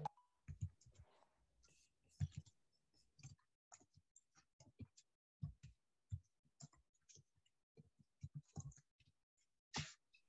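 Near silence broken by faint, irregular small clicks and soft knocks, with a slightly louder one near the end.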